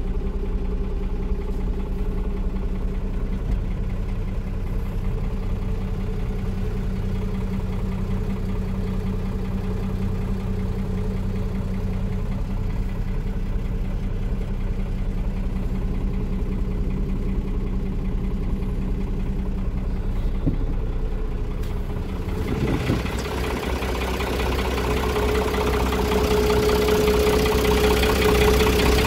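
Iveco 137.17 truck's diesel engine idling steadily. It is first heard muffled inside the cab. Past the three-quarter mark it turns louder and brighter, heard from outside beside the chassis and exhaust pipe.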